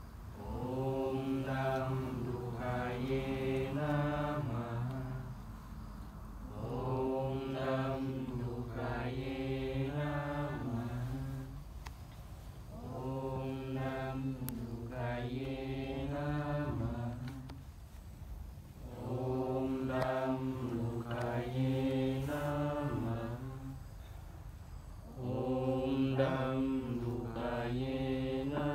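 A mantra chanted in a sustained singing voice, one phrase repeated about every six seconds with a short breath-pause between.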